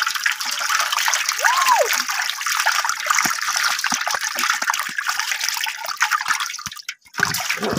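Water splashing and pouring into a metal basin as a catch of small fish, mangur catfish among them, is tipped out of a woven bamboo basket, the fish thrashing in the water. The splashing cuts out briefly about seven seconds in.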